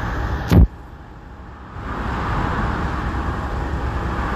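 Steady highway traffic and engine noise, broken about half a second in by a single sharp bang. After the bang the background goes quieter for about a second, then returns.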